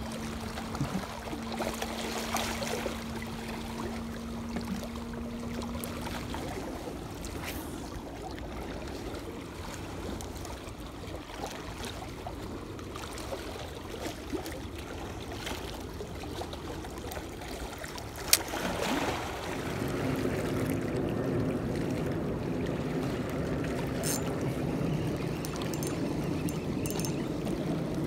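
Sea water lapping and trickling against the hull, a steady wash of noise. About two-thirds through there is one sharp click, after which a low steady hum joins.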